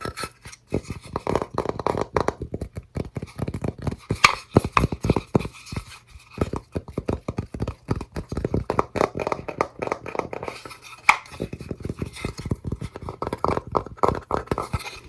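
Rapid, dense tapping on a small trinket, with a few sharper clicks about four seconds in and again about eleven seconds in.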